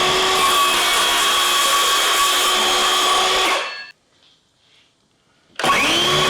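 Electric power tool motor spinning up with a rising whine, running steadily for about four seconds and winding down. It starts up again near the end.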